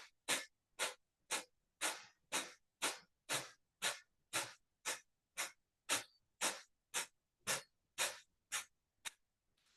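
Kapalabhati breathing: short, forceful exhalations through the nose in a steady rhythm of about two a second, stopping shortly before the end.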